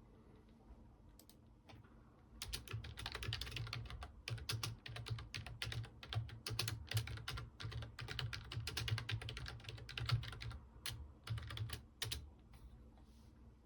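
Computer keyboard typing: a couple of single key taps, then a steady run of rapid keystrokes that stops about a second and a half before the end.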